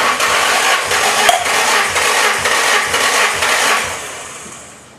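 Nissan SR20DET four-cylinder engine being cranked over by the starter with its spark plugs out and fuel and ignition disabled, so it turns without firing. This is a compression test, with the gauge building to 165 PSI. The sound starts suddenly, runs steadily with faint even pulses, and dies away over the last second.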